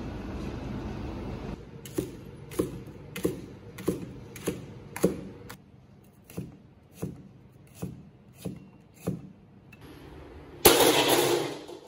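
Chinese cleaver chopping scallions and ginger on a plastic cutting board: about a dozen sharp knocks, roughly one every two-thirds of a second, after a steady low rumble. Near the end a loud clatter about a second long as a steel wok is set on the gas wok stove.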